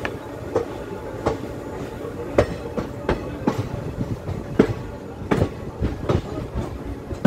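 Passenger train coach wheels clacking over rail joints as the train rolls slowly through a station, heard from aboard with the window or door open: a steady low rumble broken by sharp, unevenly spaced clacks, one or two a second.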